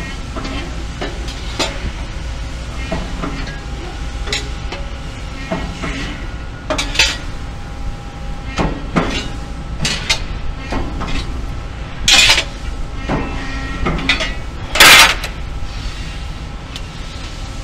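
Factory floor at a press brake: a steady machine hum under frequent metallic clanks and knocks as a sheet-metal part is handled and bent. Two louder bursts of noise come near the end.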